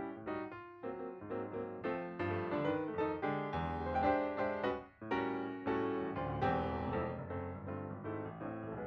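Background piano music, a flowing run of notes with a brief pause about five seconds in.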